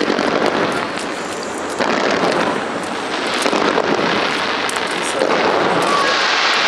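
Fireworks going off in a dense, continuous barrage, many bangs and crackles running together. The barrage grows louder about five seconds in.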